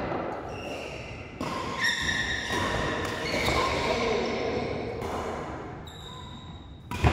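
Doubles badminton rally: rackets strike the shuttlecock sharply about every one and a half to two seconds, each hit echoing in a large hall. Short high squeaks from players' shoes on the court floor come in between the hits.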